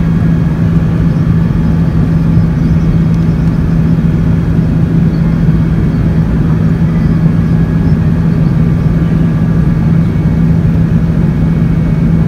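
Airbus A380 cabin noise in flight: the steady drone of the jet engines and airflow heard from a seat by the window, a constant low hum over a deep rumble.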